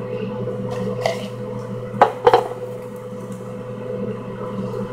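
A cup and paper slips handled as the next slip is drawn: faint rustling, with two sharp knocks about two seconds in, over a steady hum.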